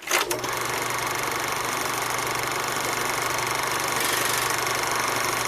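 UAZ Patriot's engine running steadily, a constant hum with hiss, cutting in abruptly at the start.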